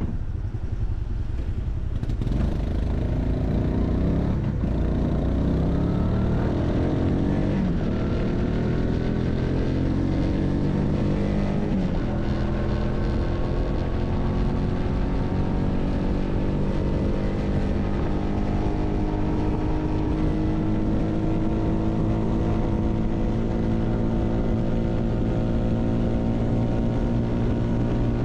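Honda Hunter Cub's small single-cylinder four-stroke engine pulling away and accelerating up through the gears, the pitch rising and dropping back at each of three shifts in the first dozen seconds, then holding a steady cruising note under low wind rumble.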